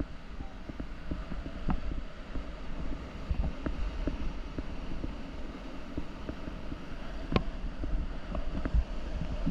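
River water and wind buffeting the microphone on a raft in a white-water river, a steady low rumble with scattered knocks and splashes. A sharp click comes about seven seconds in.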